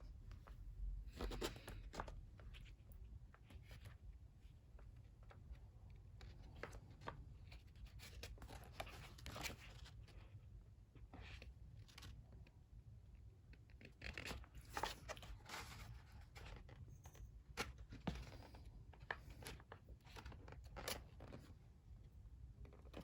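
Faint, irregular rustling and soft crinkling of paper and packaging as a photo book and its printed photos are handled and their pages turned.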